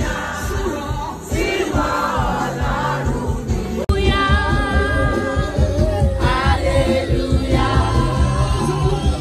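Many voices singing together over loud music with a steady beat, in a gospel-like style. The sound breaks off abruptly about four seconds in and goes straight on with louder music and singing.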